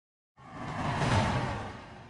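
A whoosh sound effect with a low rumble under it: it swells in about a third of a second in, peaks near the middle, and fades away.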